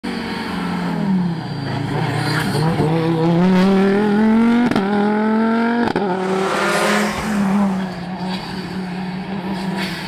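Audi Quattro S1 rally car's turbocharged five-cylinder engine accelerating hard: the revs climb twice and are cut by a sharp crack at each upshift, about five and six seconds in, then run on at a steadier pitch.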